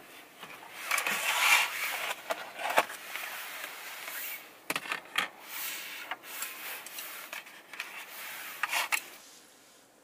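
Plastic takeout containers being handled and opened: crackling and rubbing of a lid being pulled off, with several light clicks and knocks of plastic on a wooden tray.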